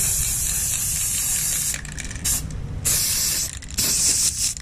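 Spray paint hissing out in bursts: one long burst of nearly two seconds, then a brief one and two more of under a second each, as grey paint goes onto a computer mouse shell.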